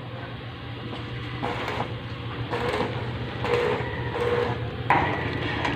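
Arc welding on steel angle bar and C-purlins: a continuous crackle from the arc over a steady low hum.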